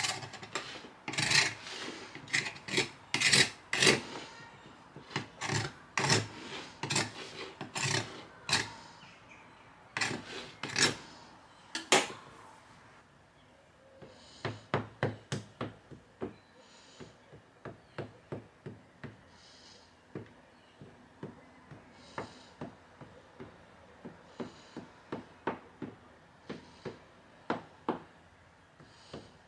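A knife cutting and scraping around the rim of a fluted metal tart tin, trimming off excess pastry, in a run of loud irregular strokes. After a short lull about twelve seconds in, a fork pricks the pastry base, a steady run of light taps against the tin, about two a second.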